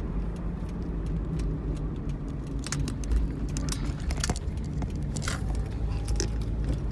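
Steady low road and engine noise inside a moving Pontiac Vibe, with scattered small clicks and rattles, a few sharper ones between about three and six seconds in.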